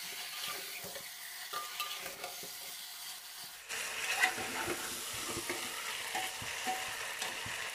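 Spatula stirring and scraping pork-leg pieces, black lentils and tomato frying in an open pressure cooker, with small knocks against the pot over a steady sizzle. The sizzle gets louder about three and a half seconds in.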